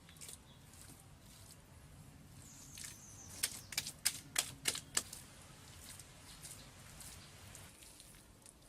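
A quick run of about seven sharp clicks or taps over about a second and a half, near the middle, over faint background noise.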